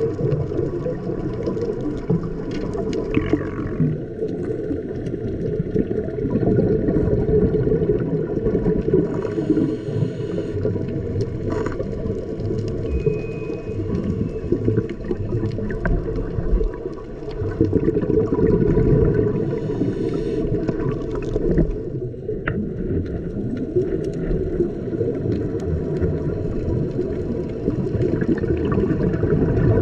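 Underwater sound during a scuba dive: a steady, dense low rush of water and bubbles, with a brief hiss twice, about ten seconds apart, from the diver's regulator breathing.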